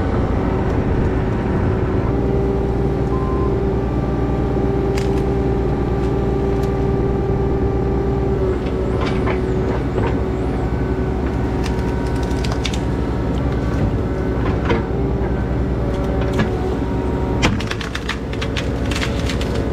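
Diesel engine of a compact construction machine running steadily under work, with scattered knocks and clatters that come thicker about 17 seconds in.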